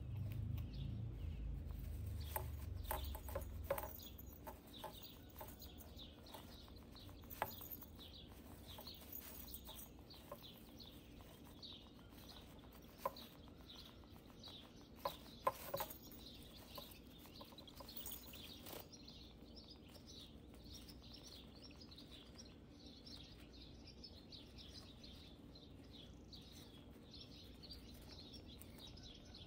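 Faint rustling and scrabbling of a hamster moving through wood-shaving bedding, with scattered sharp clicks, a few louder ones near the middle, and a low rumble in the first few seconds.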